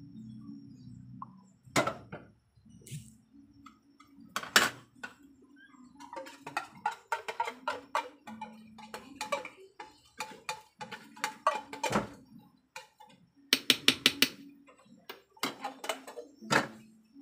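Utensil knocking and scraping against a cooking pan as ube halaya is stirred, in irregular clatters over a low steady hum.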